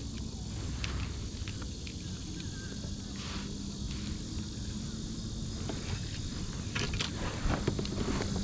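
Steady high-pitched insect chirring, with a few light clicks and knocks about three seconds in and again around seven seconds in.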